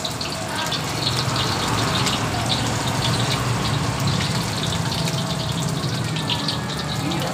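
Hot oil in a wok sizzling and crackling as pieces of batter-coated chicken are dropped in one by one to deep-fry, over a steady low rumble.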